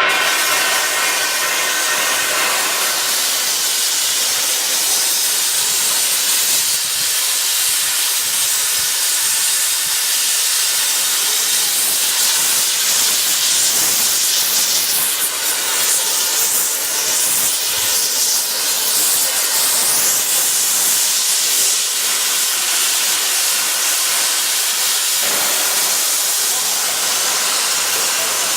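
Hypertherm plasma torch on a CNC pipe and tube cutting machine cutting steel, a loud steady hiss.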